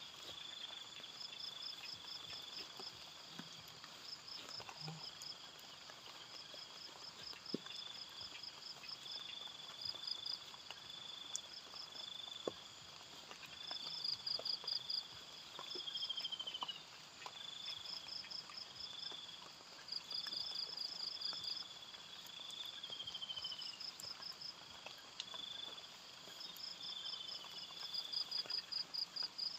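Insects chirping in the open. A high, rapid pulsed chirp repeats every second or two over a lower trill that comes and goes, with a few short falling notes and scattered light clicks.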